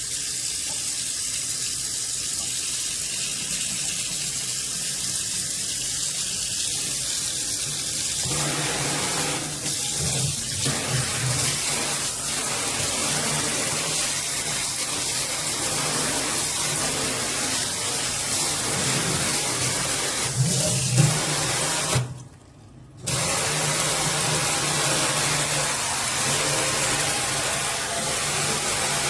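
Water running from a stainless pull-down kitchen faucet into the sink, a steady rush that becomes fuller about eight seconds in. Near the end the flow cuts off for about a second and then starts again, as when the sprayer's pause button is pressed and released.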